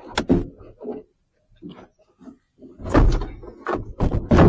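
Plastic clicks and heavy thumps as a van's interior door trim panel is handled and knocked against the door, with two louder bangs about three and four seconds in.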